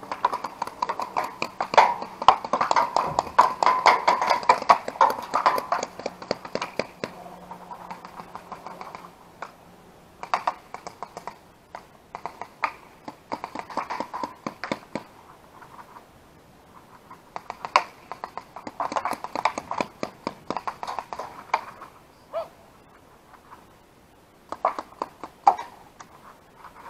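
Paintball markers firing in rapid strings of pops. There is a heavy volley over the first several seconds, then shorter bursts of fire come and go for the rest of the time.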